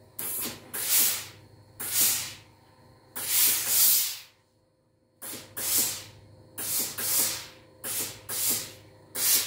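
A LauraStar steam iron shooting steam into a shirt in short hissing bursts, about ten of them, each a fraction of a second long. The longest burst, nearly a second, comes about three seconds in.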